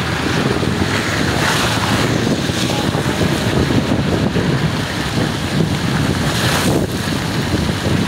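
Steady noise of heavy rain and car tyres hissing through water on a flooded road, heard from a moving car, with wind on the microphone.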